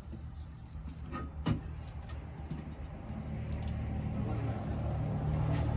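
A vehicle driving along the street, its engine hum growing louder over the last few seconds as it approaches, with one sharp click about a second and a half in.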